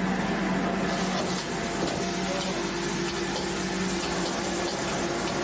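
Water on the boil for blanching greens: a steady bubbling hiss with a low, even hum underneath.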